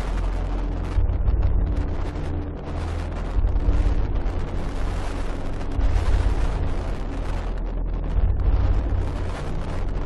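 Strong storm wind buffeting the microphone, a heavy low rumble that surges in gusts every two seconds or so, over the rush of rough sea.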